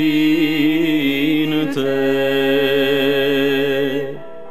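Singing of a slow Romanian devotional song (pricesne), long held notes with vibrato. A little past four seconds in the singing drops away, leaving a quieter held tone.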